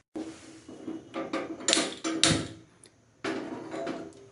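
An aluminium pressure cooker being handled: popcorn kernels rattling into the pot, then the pot clunking and scraping as it is set on the gas stove's burner grate. There are two louder metal knocks around the middle, with a light ringing from the pot.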